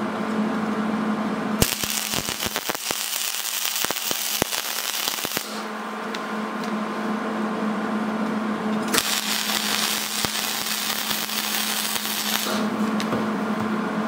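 Wire-feed welder arc welding two steel plates together: two spells of steady crackling arc, the first from a couple of seconds in for about four seconds, the second later on for about three and a half seconds, over a steady low hum.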